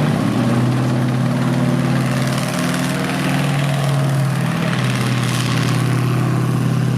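M4A1 Sherman tank's Continental R975 nine-cylinder radial engine running steadily, its pitch shifting slightly now and then, with a brief rush of noise about five seconds in.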